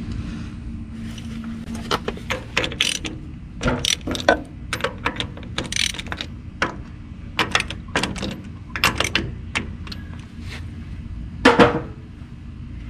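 Irregular clicks of a ratchet wrench and clinks of metal tools on a Ferguson TO20's four-cylinder engine as the spark plugs are taken out, with one louder clank near the end.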